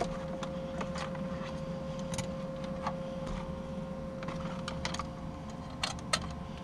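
Scattered light clicks and rustles of plastic wiring-harness connectors and loose wires being handled, over a faint steady hum.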